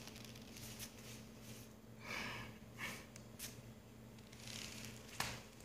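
Faint brushing and scuffing of a cat playing with a peacock feather on a wooden floor: a few soft swishes, then a sharp tap near the end.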